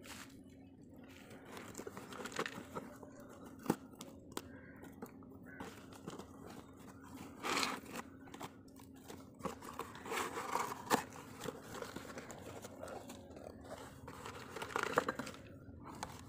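Corrugated cardboard box being pulled open by hand: irregular crinkling, crunching and tearing of cardboard with sharp crackles, louder bursts in the middle and again near the end.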